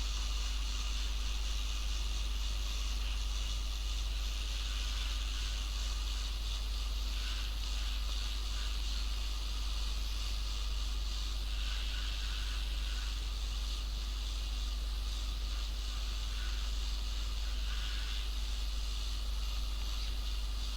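Steady airflow hiss from a hot-air rework station blowing on a laptop motherboard to loosen a surface-mount chip, over a constant low mains hum.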